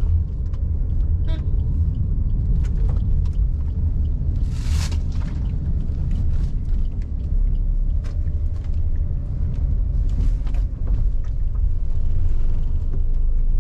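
Steady low road and engine rumble inside the cabin of a moving car, with a few light clicks and a brief rush of noise about a third of the way through.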